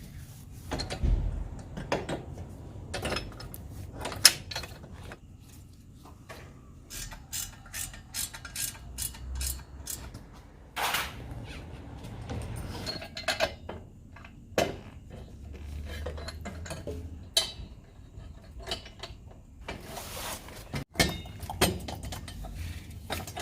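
Hand tools at work on a motorcycle's exhaust: irregular metallic clicks and knocks, with a quicker run of clicks in the middle.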